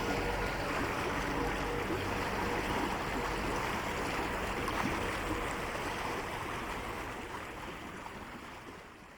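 Flowing water, a stream running with a steady rushing and gurgling, fading out gradually over the last few seconds.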